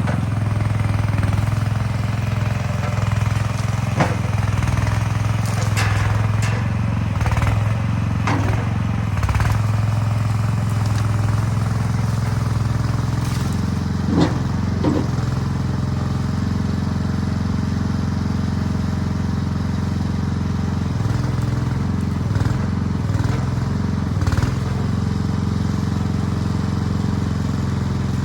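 Chinese mini skid steer's engine running steadily while the machine works, its note shifting about halfway through, with several sharp clanks and knocks.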